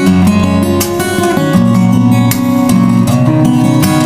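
Background music: strummed acoustic guitar, with chords changing every second or so.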